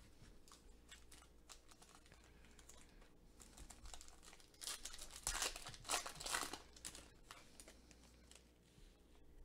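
Foil wrapper of a 2020 Leaf Draft football trading card pack crinkling and tearing as it is pulled open by hand. It is loudest about five to six and a half seconds in, with light clicks and rustles of handling before and after.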